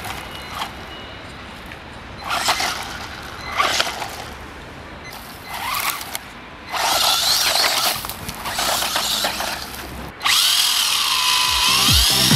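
Small electric motor of a 1/18-scale RC buggy whining in short throttle bursts, its pitch rising and falling. From about halfway in it runs longer and louder with a wavering whine.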